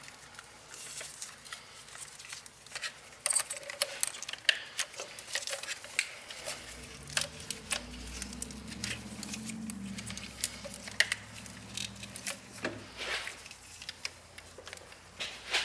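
Irregular clicks and taps of plastic lines, hose clips and connectors being handled and pried loose on top of a Mercedes engine, with a faint low hum for a few seconds in the middle.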